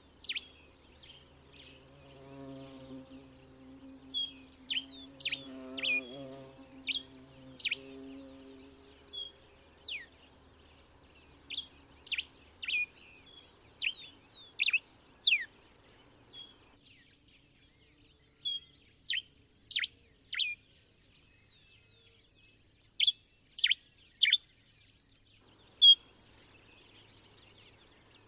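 Diuca finch (Diuca diuca) singing: short, sharp, high whistled notes, many sliding steeply down, given in loose phrases with pauses between. A faint low hum runs under the first eight seconds or so.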